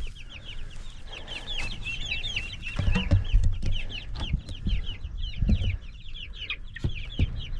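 A flock of young meat chickens peeping continuously, with many short, high, falling peeps overlapping. Low rumbling and a few knocks come through the peeping about three seconds in and again about five and a half seconds in.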